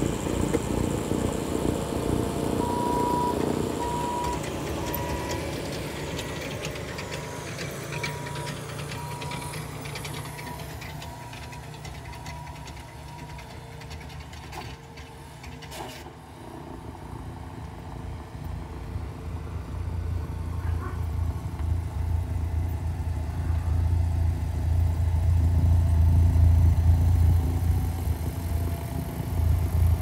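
Snowplow with a rotary snow blower running as it throws snow. It fades as the machine moves off, with a reversing alarm beeping steadily for about ten seconds, then grows loud again with a deep rumble as it comes back close.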